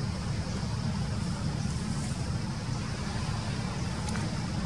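Steady low rumble of outdoor background noise with a faint hiss above it.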